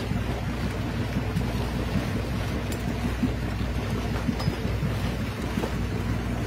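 A boat's engine running steadily, with wind noise on the microphone and sea water washing around the hull.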